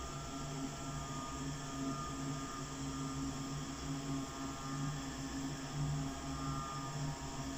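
A steady low hum with a few held pitches and a hiss above it, swelling a little now and then.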